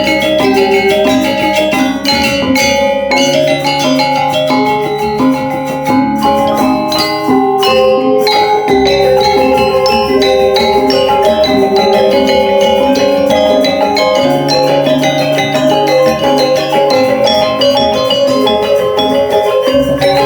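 Balinese gamelan playing: fast repeating patterns of bronze metallophones over low held gong tones.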